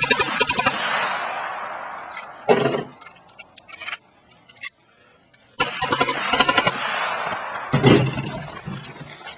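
Ruger .22 semi-automatic pistol fired as fast as possible in a magazine dump. A rapid string of sharp shots, each ringing out in echo, then a few more shots, a pause for a magazine change, and a second rapid string about five and a half seconds in.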